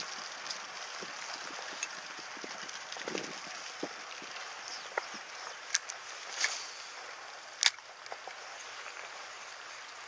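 Steady outdoor background hiss with a few scattered light clicks and knocks, the sharpest one a little over three-quarters of the way through.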